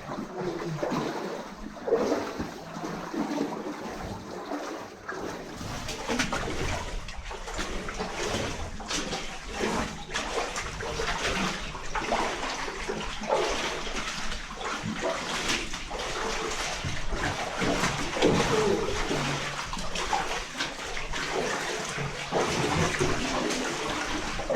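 Water splashing and sloshing in an irregular run, as people wade through shallow water in a flooded shelter tunnel.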